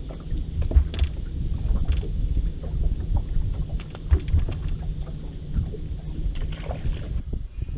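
Bass boat on open water: a dense low rumble of water against the hull, with scattered small clicks and knocks as a small smallmouth bass is unhooked and tossed back.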